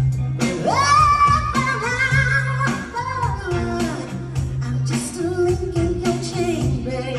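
Live soul band performance: a female singer belts a long held note that slides up about half a second in and then bends through a melismatic run, over a band with bass guitar, drums and electric guitar keeping a steady beat.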